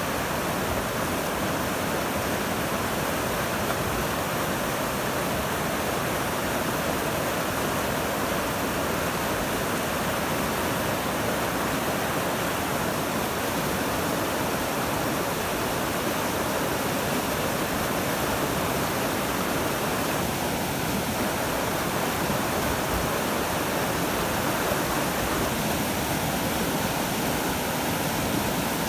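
Fast glacial-meltwater whitewater rushing over a rocky riverbed: a steady, unbroken rushing noise.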